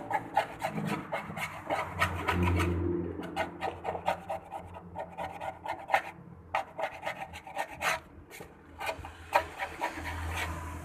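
Quick, uneven hand strokes rubbing and scraping over a car's cabin roof panel, working off leftover glue.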